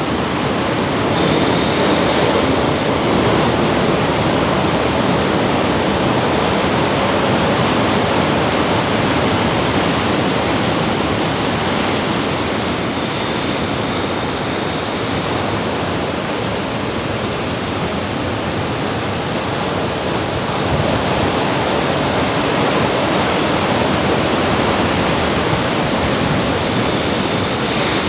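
Ocean surf washing onto the beach: a steady, loud rush of waves.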